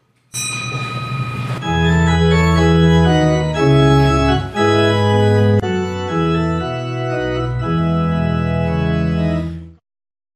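Instrumental intro music: a bright shimmering opening, then sustained chords over a slow bass line changing about once a second, cutting off abruptly near the end.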